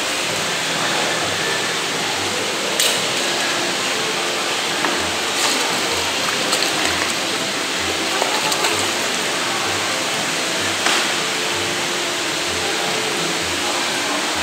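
Steady rush of churning, splashing water as a hooked striped jack (shima-aji) thrashes at the surface of the fishing pond, with a few sharper splashes.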